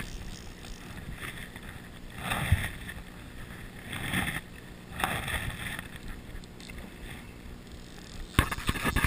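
Steady rush of shallow river water flowing past a wading angler, with a few brief swishes about two, four and five seconds in and sharp clicks near the end.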